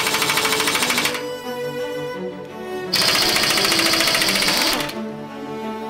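Impact wrench hammering a socket on a nut of a Grant tank's turret ring to undo it: two bursts of rapid rattling, about a second and then about two seconds long, the second with a high whine over it. Background music plays underneath.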